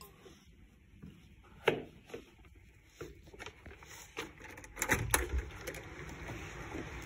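Footsteps on a hard floor with scattered light knocks and handling noises, the sharpest knock about one and a half seconds in and a short cluster around five seconds in.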